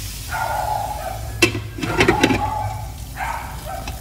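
Glass pot lid set down onto a metal wok: a sharp clack about a second and a half in, then a quick clatter of knocks as it settles. A wavering high pitched tone is heard near the start and again near the end.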